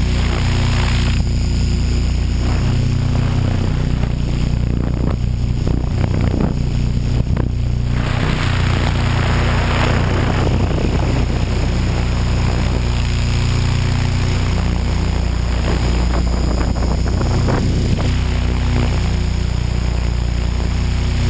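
HK600GT radio-controlled helicopter in flight, heard from its onboard camera: a steady drone of the rotor and motor with a high whine. The rush of air thins for a few seconds about a quarter of the way in.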